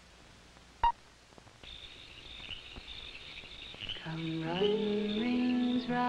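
A single short beep about a second in, the sync pop of a film countdown leader, over a faint hiss from the film's soundtrack. In the last two seconds music comes in with held notes that step up and down in pitch.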